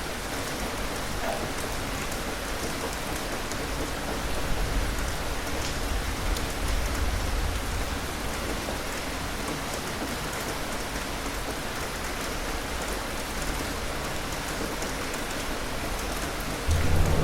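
Steady rain falling on a surface, an even hiss with scattered drop ticks. A low rumble swells through the middle, and a louder low rumble comes in suddenly just before the end.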